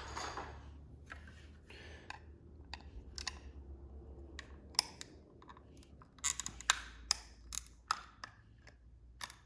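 Flathead screwdriver prying at the plastic housing of an electronic door lock: scattered small scrapes and clicks, then a quick run of sharper clicks and snaps about six to eight seconds in.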